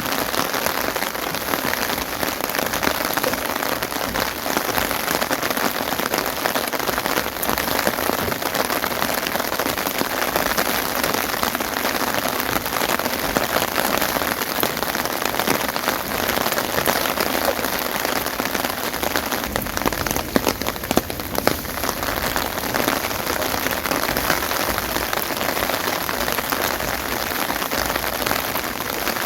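Steady rain falling in a dense patter of drops, with a few sharper taps about two-thirds of the way through.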